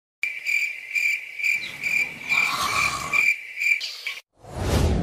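Cricket chirping, a steady high trill pulsing about two to three times a second: a night-time sound effect laid over the scene as the characters bed down. It stops a little before the end, and a brief rush of noise follows.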